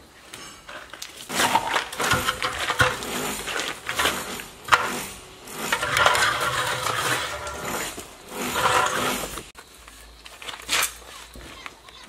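Irregular clinks, knocks and scrapes of metal parts and tools being handled while an electric motor is fitted back onto a concrete mixer. There is no steady hum, so the motor is not running.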